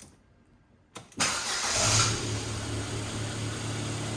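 Ford Fiesta 1.2 Zetec petrol engine starting. A click about a second in, then it catches with a brief rise in revs and settles into a steady idle. It runs without the rubbing noise, the rubber strip behind the timing belt cover now reseated clear of the belt.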